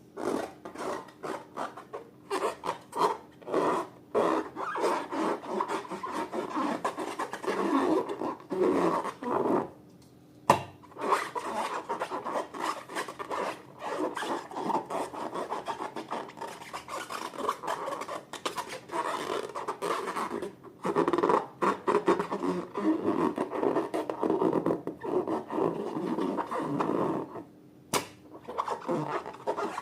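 Slime being worked by hand, stirred and squeezed, giving a dense run of sticky crackling and rubbing noises with brief pauses, and one sharp click about ten seconds in.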